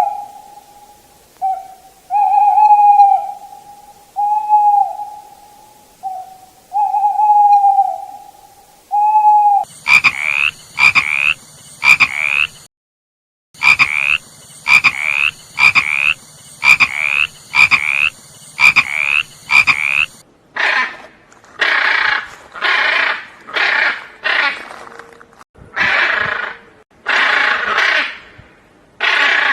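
Frogs croaking in three runs of repeated calls. First come evenly spaced mid-pitched calls of about a second each. From about ten seconds in there are quicker, sharper calls, and from about twenty seconds in, harsher rasping calls.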